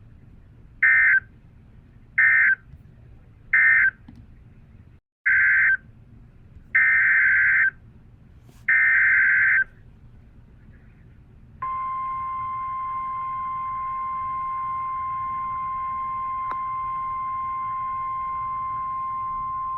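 NOAA Weather Radio EAS/SAME digital data bursts: three short screeching bursts, typical of the end-of-message code, then three more as the header of the next warning. About two seconds later the 1050 Hz Weather Radio warning alarm tone comes on as one steady, loud tone that announces a new warning.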